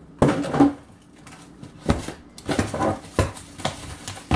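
A cardboard box and a plastic-bagged carburetor being handled on a table: crinkling and rustling of packaging, with several sharp knocks.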